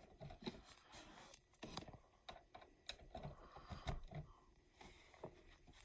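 Faint, scattered small clicks and taps, typical of handling a plug and cord while plugging it into an outlet.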